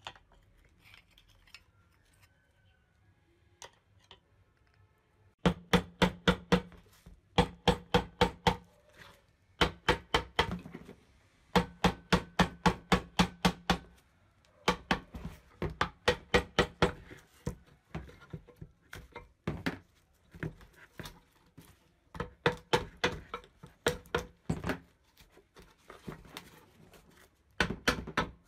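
Mallet blows on the metal housing of an old ENDO spring balance, striking to work the seized casing apart. Starting about five seconds in, the sharp, slightly ringing knocks come in quick runs of about five a second, with short pauses between runs.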